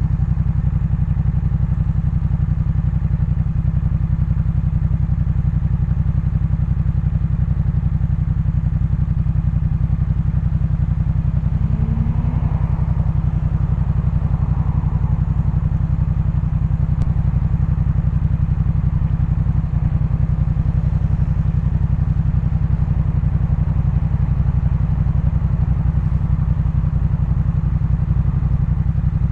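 Yamaha MT-07's 689 cc parallel-twin engine running at steady, unchanging low revs through a Jeskap K4 full aftermarket exhaust.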